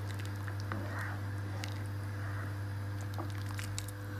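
Cornflour-thickened soup simmering in a pot while a plastic ladle stirs it, with a few faint clicks of the ladle. A steady low hum runs underneath.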